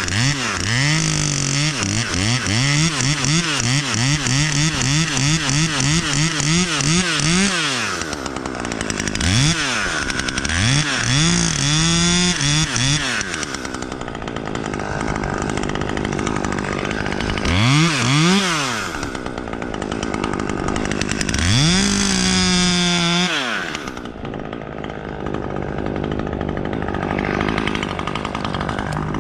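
Chainsaw revved up and down over and over in quick succession for about eight seconds. After that it gives several separate revs with pauses between them.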